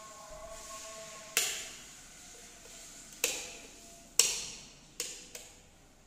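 Plastic wall rocker light switch clicking sharply as it is pressed, about five separate clicks a second or so apart.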